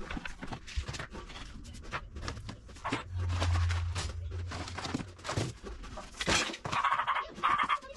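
Spice jars and bottles clicking and knocking against each other and the wooden cabinet shelf as they are lifted out one after another. A low hum comes in for over a second about three seconds in.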